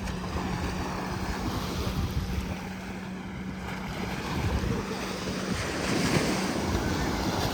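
Surf washing onto the beach, with wind buffeting the microphone; a wave surges louder in the last couple of seconds. A steady low hum runs underneath.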